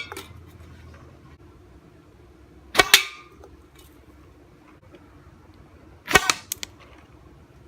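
3D-printed darts shot from a half-inch PVC blowpipe: two sharp shots about three seconds apart, each a quick double crack with a brief ringing tail, and a faint click at the very start.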